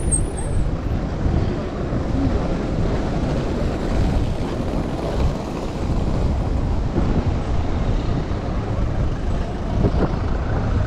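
Steady wind noise on the microphone, mixed with cars driving past on the road.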